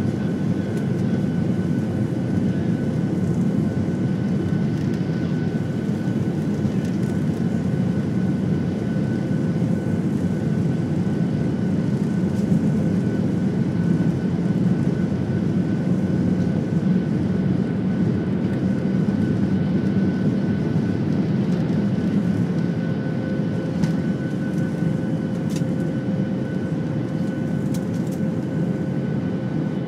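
Cabin noise of a Boeing 737 on its takeoff roll: the jet engines at takeoff power make a loud, steady rumble with a constant whine in it. A few faint clicks come in the later part.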